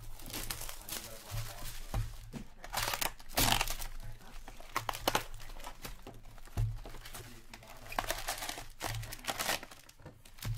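Plastic shrink-wrap crinkling and a cardboard hobby box of Upper Deck Ice hockey cards being torn open, then foil packs rustling as they are pulled out, in irregular bursts with dull knocks of handling against the table.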